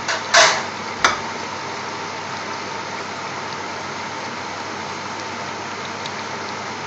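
Pot of curry boiling on a gas hob: a steady bubbling hiss, with a short scrape about half a second in and a sharp click about a second in.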